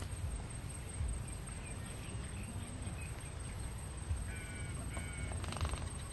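Outdoor background with a steady low rumble of wind on the microphone. A bird calls twice about four to five seconds in, followed by a short rattling burst, with fainter chirps earlier.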